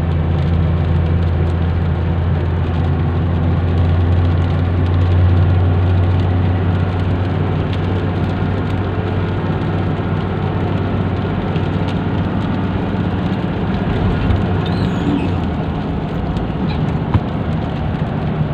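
Vehicle engine and road noise heard from inside the cabin while driving: a steady low drone that eases off about halfway through.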